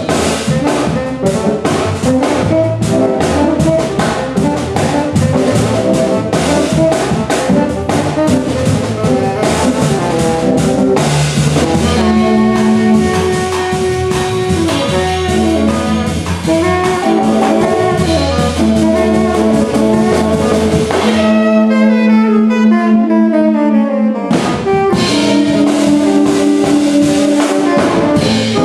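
Live jazz trio: a tenor saxophone plays the melody over a drum kit and an 8-string guitar. About three quarters of the way through, the drums and low end drop out for roughly three seconds, leaving a held note, before the full band comes back in.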